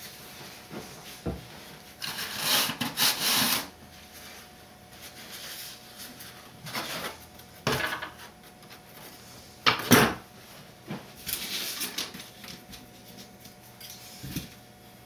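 Handling noise as a foam model airplane is moved about on a workbench: rustling and rubbing with a few knocks, the sharpest about ten seconds in.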